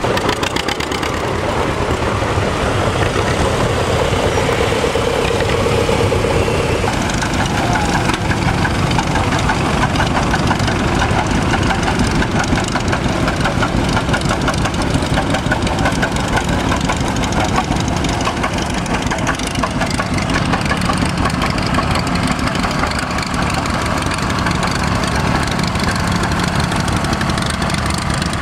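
Antique farm tractor engines running as a line of vintage tractors drives past, one after another, including a two-cylinder John Deere. The engine sound changes about seven seconds in as one tractor gives way to the next.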